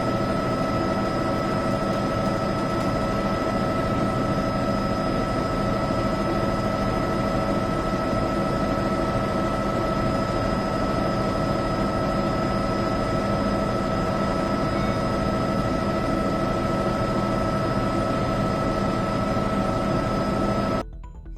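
Steady aircraft engine noise: an even drone with several constant tones over a roar, unchanging in level, cutting off abruptly near the end.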